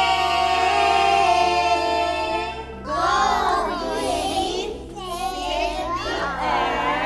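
Young children's voices singing over background music with steady bass notes: one long held note for the first two and a half seconds, then after a brief dip, more voices that slide up and down in pitch.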